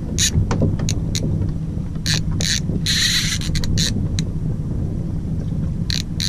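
Fishing reel working in short, irregular noisy bursts while a hooked fish is fought on a bent rod, over a steady low rumble of the boat's idling engine.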